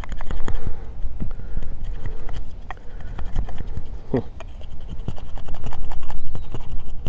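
A convex-grind bushcraft knife carving a feather stick from hard seasoned wood: quick, uneven scraping strokes with knocks and crackles as the blade bites deep into the wood. A short squeak comes about four seconds in.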